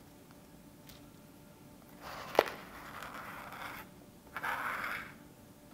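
A strip of cardboard scraping excess shaving cream off a sheet of paper in two strokes, with a sharp tap during the first stroke.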